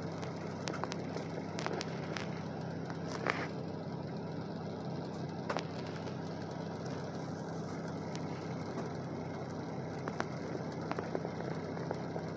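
A vehicle engine running steadily, heard as a constant low hum, with scattered light clicks over it.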